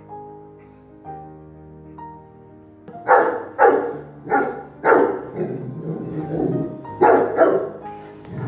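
Bernese Mountain Dog barking loudly in a quick run of barks, starting about three seconds in, over soft piano background music.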